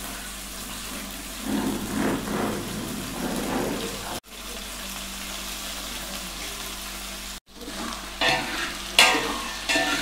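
Hot oil sizzling in a large aluminium pot as green peas are poured in onto the vegetables, louder for a couple of seconds as they land. Near the end a spatula starts stirring, scraping against the pot in quick strokes.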